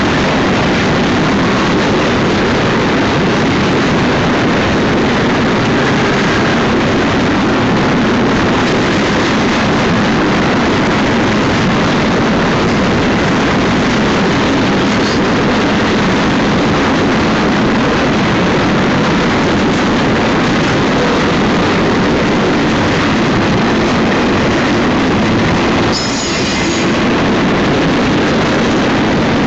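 Union Pacific double-stack container train's cars rolling past close by: a steady, loud rumble of steel wheels on rail. A faint, brief high-pitched squeal comes near the end.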